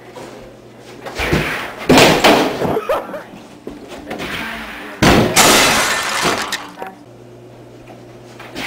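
A person sliding across a kitchen floor and crashing. It comes as two sudden, loud, noisy crashes about three seconds apart, each dying away over a second or so.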